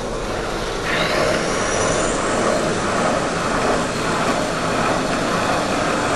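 Seat-and-guide machine spindle spinning up about a second in with a rising whine, then running steadily as a half-inch reamer cuts a valve guide bore in a small-block Chevrolet cylinder head.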